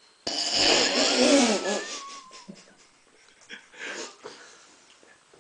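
A man bursts into a loud, wheezing laugh for about a second and a half, then it trails off into fainter stifled giggles behind his hand.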